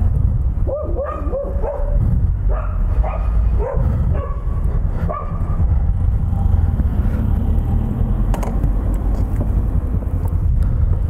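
A dog barking in a series of short barks during the first five seconds, over a steady low rumble from the motorcycle and wind on the microphone. A few sharp clicks come in the second half.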